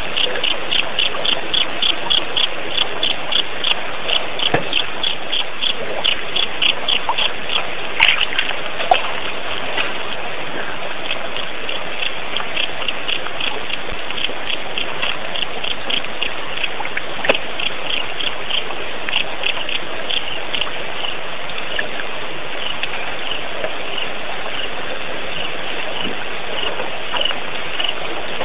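Night chorus at a waterhole: a high chirping call repeating evenly, about two or three times a second, over a steady hiss of running water. There are a couple of sharp clicks, the first about eight seconds in.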